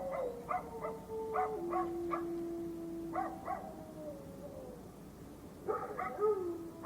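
Two dogs fighting: a string of short, sharp barks and yelps over long drawn-out whines that slide down in pitch, with a fresh flurry of barks near the end.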